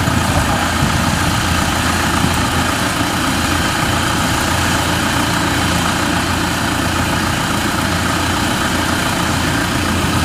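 Kubota combine harvester's diesel engine idling, a steady low running sound that does not change.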